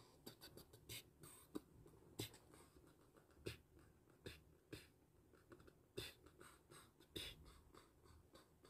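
Faint, irregular clicks, taps and rustles, a few a second, from a person shifting in a seat and reaching down to handle something close to the microphone.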